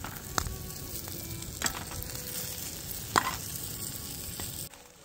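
Omelette sizzling in a stainless steel pan on a camp stove, with a fork clicking against the pan three times as it is worked under the egg to fold it. The sizzle stops suddenly near the end.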